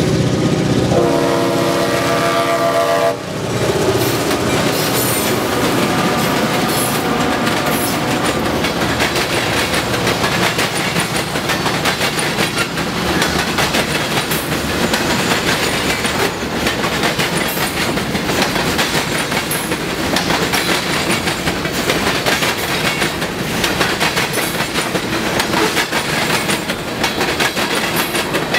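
Two GP38-2 diesel locomotives pull a freight train through a crossing. The lead unit's Leslie five-chime horn gives one blast about a second in, held for about two seconds and cut off sharply. The locomotives' engines run under load, and then a long string of freight cars rolls past with a steady clickety-clack of wheels on rail joints.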